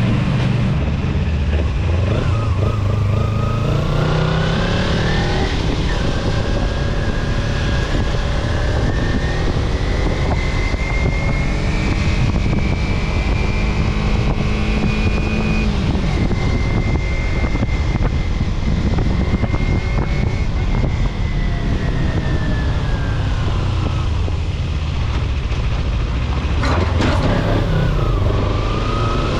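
A road vehicle's engine running under way. Its pitch rises as it speeds up over the first few seconds, holds steady through the middle, falls away about two-thirds of the way through and rises again near the end, over a steady low road rumble.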